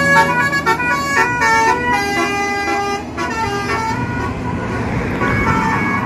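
Basuri telolet bus horn playing a quick multi-note melody, the notes stepping up and down for about three seconds. Then the coach's engine is heard as it pulls away.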